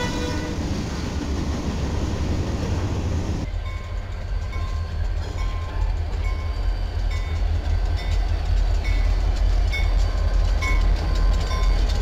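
Freight train of covered hopper cars rolling past, steel wheels rumbling on the rails, with the tail of a horn blast dying away in the first half-second. About three and a half seconds in the sound changes abruptly to diesel freight locomotives passing close, a deep engine rumble with a short tone repeating about every two-thirds of a second.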